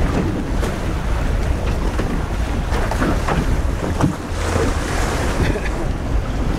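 Strong wind buffeting the microphone over choppy sea, with waves splashing and slapping against a small boat's hull.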